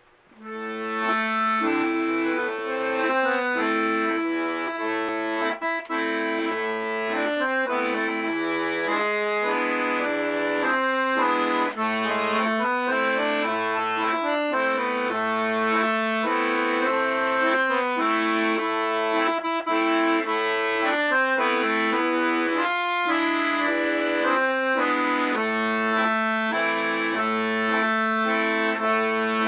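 Piano accordion playing a Ukrainian folk waltz, a melody on the treble keys over regularly repeating bass notes and chords. It comes in about half a second in and plays steadily after that.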